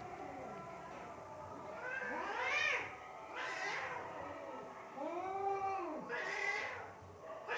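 Cats yowling during a fight: a string of drawn-out calls, each rising and then falling in pitch, about five or six of them, one after another.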